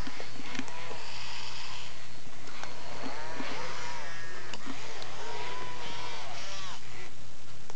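Pleo robotic dinosaur's gear motors whirring with a low pulsing hum and a few clicks as it moves, while it gives a string of warbly electronic calls that rise and fall, from about three seconds in to near the end.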